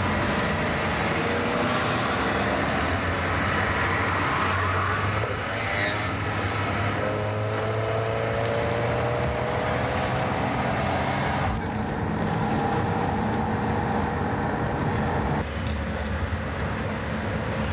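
Car engine running and road noise heard from inside a moving Audi, with passing traffic. The sound shifts abruptly twice, about two-thirds through and again near the end.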